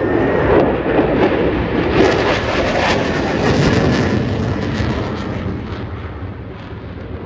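Jet noise from a Boeing EA-18G Growler's two General Electric F414 turbofan engines at full power in a steep climb. Loudest about two to four seconds in, then fading steadily as the jet climbs away.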